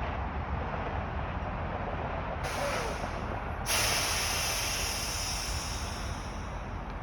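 Truck air brakes hissing twice over a steady low rumble of idling engines. The first hiss lasts about a second; the second comes a moment later, louder, and fades away over a few seconds.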